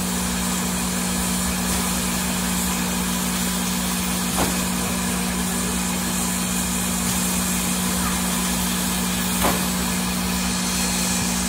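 Steam locomotive standing with its machinery running: a steady low drone under a constant hiss, broken twice by a short click.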